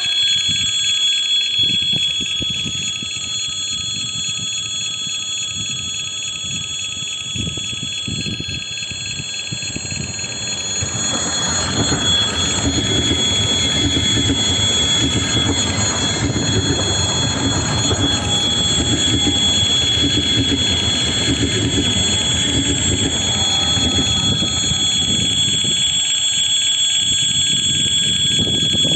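Doubled ES2G Lastochka electric multiple unit, two coupled trainsets, approaching and passing at speed: the rumble swells from about eleven seconds in and stays loud as the cars go by, with a rhythmic clatter of wheels. A steady high-pitched ringing tone sounds throughout.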